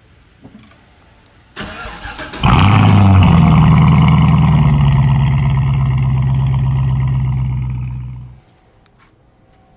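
Cold start of a Cadillac CTS-V's supercharged 6.2-litre V8 through Black Widow Neighborhater mufflers. The starter cranks for under a second, then the engine catches with a loud flare and settles into a steady fast idle. The sound cuts off about eight seconds in.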